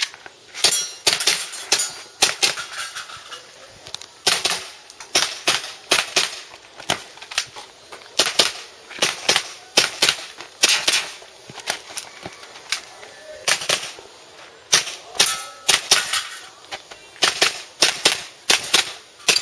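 Airsoft pistol shots fired in quick pairs and short strings, about three shots a second at the fastest, with brief pauses between strings as the shooter moves between targets.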